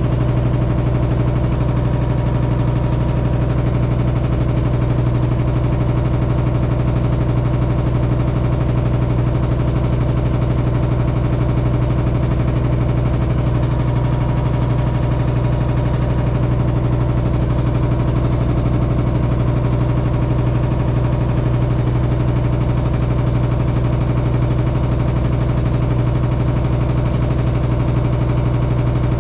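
Hitachi SF-150TCV washing machine in its spin cycle, running with a loud, steady low hum and a dense rattling vibration from inside. The owner suspects the drum shaft is off-centre or not tightened, so the wash tub wobbles as it spins.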